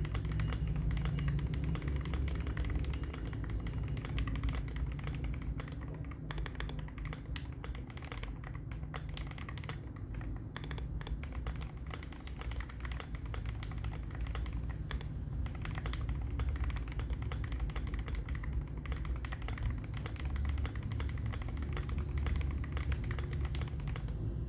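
Continuous fast typing on an Akko ACR Pro Alice Plus mechanical keyboard with a polycarbonate plate, Akko Crystal switches and Akko ASA-profile keycaps: a dense, steady run of keystrokes.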